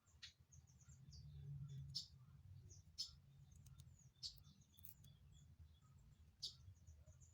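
Near silence: a faint low hum, with scattered faint short high chirps and a few soft clicks.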